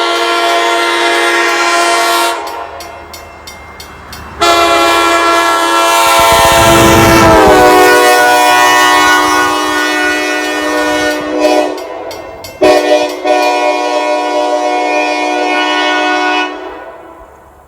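Nathan Airchime square-tag K5LA five-chime locomotive horn, original ex-CSX, sounding loud chord blasts as it is driven past. The chord's pitch drops as it goes by, with a rush of passing noise, and it breaks off briefly before a last blast.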